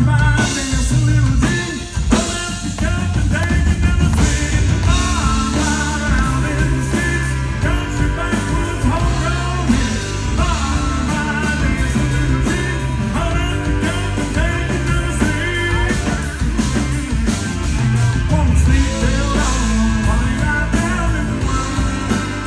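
Live country-rock band playing with a male lead vocal, a full band mix with strong bass under the singing.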